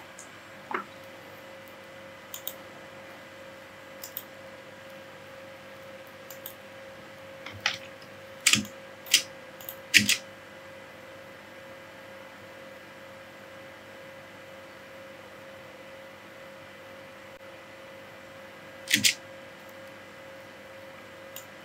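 Scattered computer mouse clicks, sharp and isolated, a cluster of louder ones in the middle and a double click near the end, over a faint steady hum.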